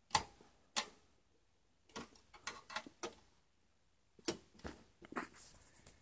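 Irregular light clicks and taps of an HDMI cable plug knocking against the metal rear bracket of the graphics card and the PC case while it is pushed into the port.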